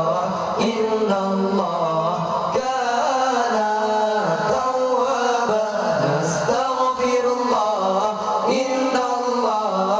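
Young male voices chanting a melodic Acehnese song that accompanies a seated traditional dance. The melody moves in short, rising and falling phrases, with no break.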